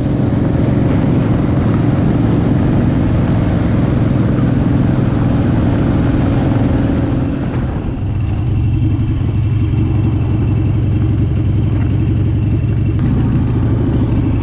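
Motorcycle engine running steadily while riding, with heavy wind noise on the microphone. About eight seconds in, the wind noise eases.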